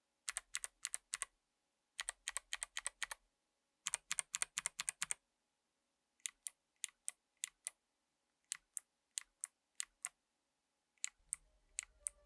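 Mechanical keyboard with Kailh Box Navy clicky switches being typed on: three quick runs of sharp key clicks, then slower single keystrokes spaced out through the rest. The thick click comes from the switches' click bar under a heavy spring.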